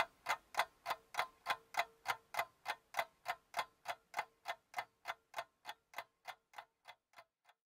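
Clock-like ticking sound effect for a news-broadcast intro: sharp, even ticks about three a second over a faint steady tone, growing fainter and dying away near the end.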